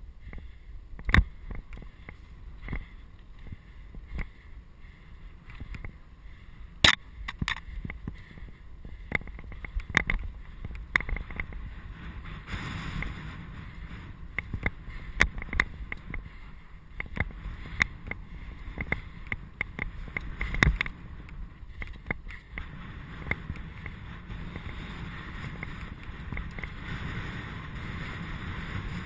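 Mountain bike riding over a dry dirt and gravel trail: steady tyre noise on the loose surface, broken by frequent sharp rattles and knocks as the bike jolts over stones and ruts.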